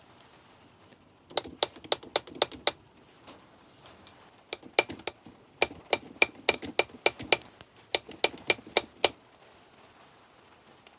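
Light hammer taps on metal, ringing sharply, most likely on the camshaft bearing caps of a VW 16V cylinder head to loosen them: a quick run of about six taps, a pause, then a longer run of about fifteen that stops a couple of seconds before the end.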